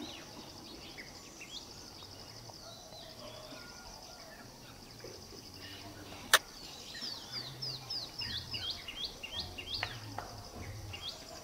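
White-rumped munia calling: a run of short, thin, sharply bending high notes, several a second, from about seven seconds in to near ten seconds, with a few scattered notes earlier, over a steady high buzz. A single sharp click about six seconds in is the loudest sound.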